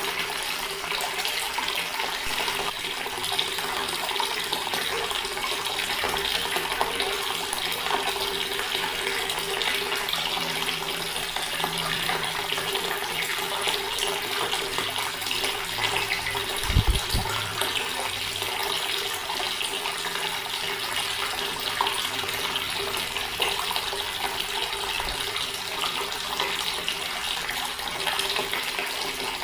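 Water running steadily from a tap and splashing, an even rushing hiss. A brief low thump sounds a little over halfway through.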